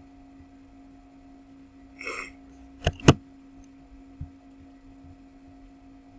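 Two sharp clicks about a fifth of a second apart, typical of a computer mouse being double-clicked, come just after a short rustle; a fainter click follows a second later. A steady low electrical hum runs underneath.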